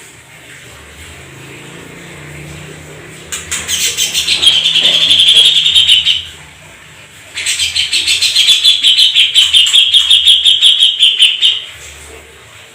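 Canary singing two long, rapidly pulsed rolling trills, each lasting several seconds with a short pause between them.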